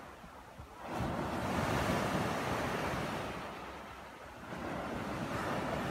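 Small waves breaking and washing up a sandy beach: one surge swells up about a second in, eases off, and a second comes in near the end.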